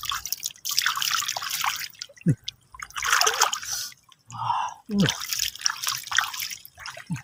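Shallow water splashing and dripping as hands scoop into it and lift stones and snails out, in three bursts of splashing with short pauses between.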